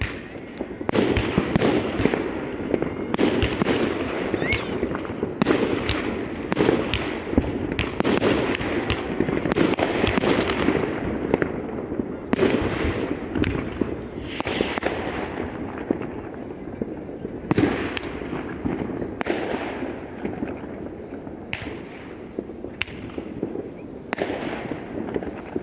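Fireworks salute: a dense run of sharp bangs from bursting shells, several a second, some trailing off in a smear. They thin out over the last ten seconds.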